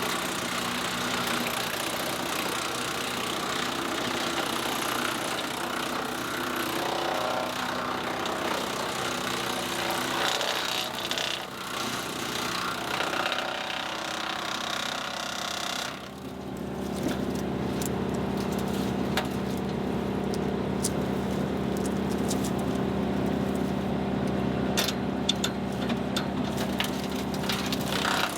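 Woodland Mills wood chipper grinding up branches over the steady drone of the engine driving it. About sixteen seconds in the chipping noise stops and the engine runs on steadily, with a few light knocks near the end.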